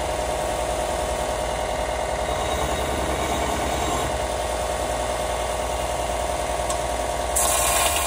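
Small bench belt sander running while a 1095/15N20 Damascus steel blade blank is pressed against the belt to profile it: a steady motor-and-belt drone with a grinding rasp. Near the end it turns louder and hissier.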